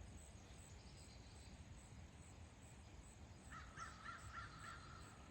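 A bird calling faintly, a quick run of about five calls a little past halfway, over a quiet outdoor background.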